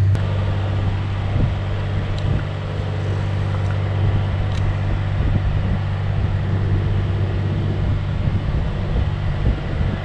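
Wind buffeting the microphone in an uneven, rumbling rush, over a steady low hum.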